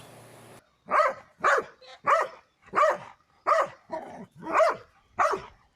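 A dog barking repeatedly in a steady rhythm, about eight short barks a little over half a second apart.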